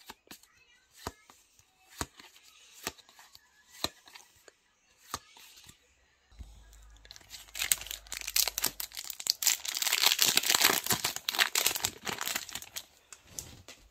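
Trading cards being flipped one at a time, a soft click about once a second. From about seven seconds in, a Yu-Gi-Oh booster pack's foil wrapper is torn open and crinkles loudly for about five seconds.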